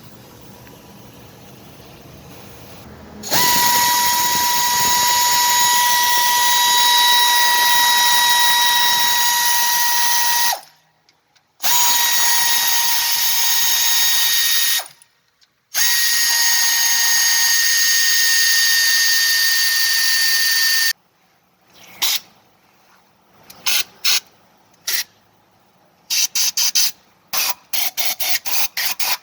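Power tool whining steadily in three long runs of several seconds each, then a string of quick, short bursts near the end.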